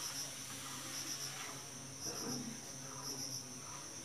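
Insects chirping: a steady high trill with short chirps in groups of three, repeating about once a second.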